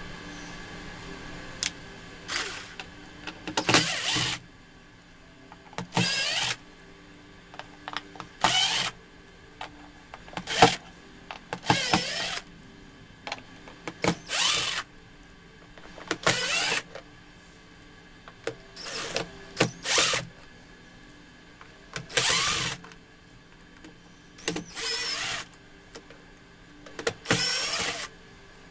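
Repeated rasping, scraping strokes, each about half a second long and coming roughly every two seconds, several with a squeak in them.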